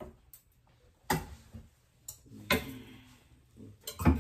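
Several sharp knocks and clicks of kitchenware being handled and set down, separated by short quiet gaps, the loudest near the end.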